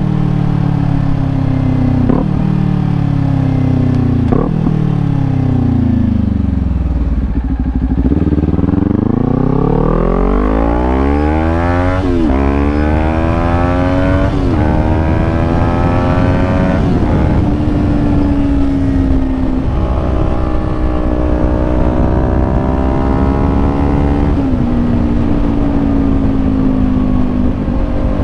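Kawasaki Ninja 400 parallel-twin engine through a Leo Vince GP Corsa EVO slip-on exhaust. Its note falls for several seconds as the bike slows, with two brief breaks. It then rises as the bike pulls away, dropping back at three upshifts, and settles into a steady cruise.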